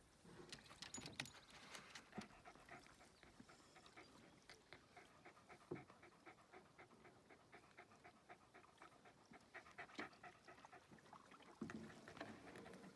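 A dog panting quickly and faintly, with a few soft knocks in between.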